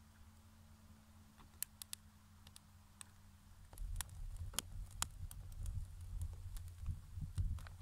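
Stick campfire crackling with scattered sharp clicks and pops. About four seconds in, a low rumble of the burning wood comes in and the pops grow more frequent.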